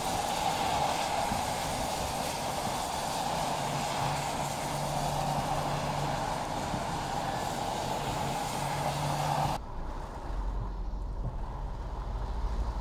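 Car tyres hissing and splashing through water on a flooded road, with a steady wash of rain and wind noise. About nine and a half seconds in, the sound cuts abruptly to the low rumble of a vehicle driving on a wet road, heard from inside.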